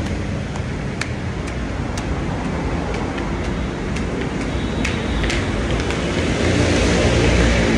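Steady road traffic noise with a low rumble, swelling a little near the end, with a few light clicks on top.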